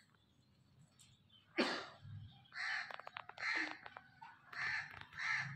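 Crows cawing: a run of about five short, harsh caws starting about a second and a half in, the first one the loudest.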